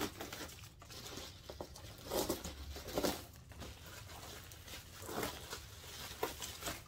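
Packaging rustling and crinkling in short, irregular bursts as a doll is unpacked from its box.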